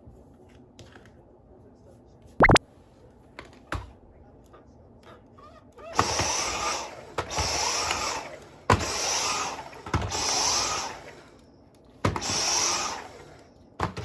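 Dyson V10 cordless vacuum's motor pulsing: it runs up for about a second, cuts out, and starts again, five or six times in a row, after a sharp click a couple of seconds earlier. The on-off pulsing goes with a vacuum that has no suction, typical of a Dyson with a clogged filter or blocked airway.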